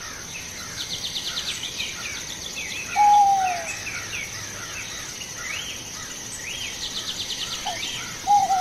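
Bird ambience: many birds chirping, with quick high trills about a second in and again around seven seconds, over a steady high tone. A louder, lower call slides down in pitch about three seconds in and again near the end.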